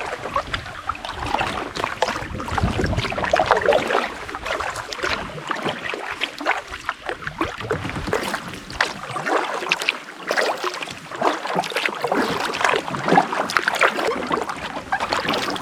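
Canoe being paddled: a continuous irregular crackle of water splashing and dripping as the paddle dips and lifts.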